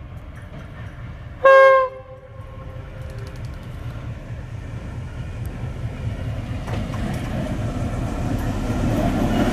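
Serbia Cargo class 661 diesel-electric locomotive 661-138 sounding one short horn blast about a second and a half in, lasting about half a second. Then its diesel engine rumble and the train's running noise grow steadily louder as it approaches.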